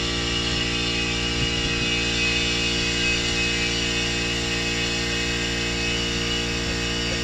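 Electric shop air compressor running steadily, charging an air tank: a constant hum of several steady tones.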